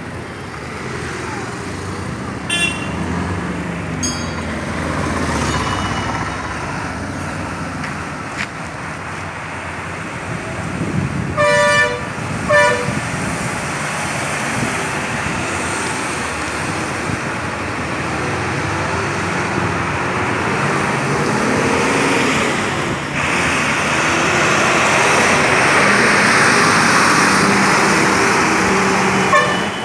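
Road traffic of motorcycles and other vehicles passing, with a vehicle horn honking twice about twelve seconds in. Near the end the engine of a heavy tanker lorry grows louder as it drives past close by.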